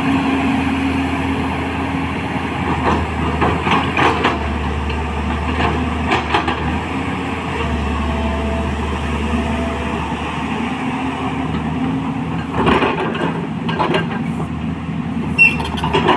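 Excavator's diesel engine running steadily, with several short knocks or clanks: a cluster a few seconds in, two more past the middle and a sharp one near the end.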